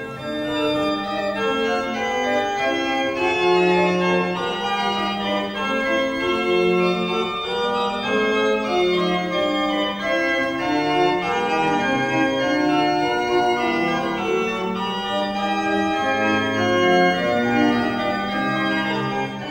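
Organ music with several notes held together, moving through chords and a melody at an unhurried pace.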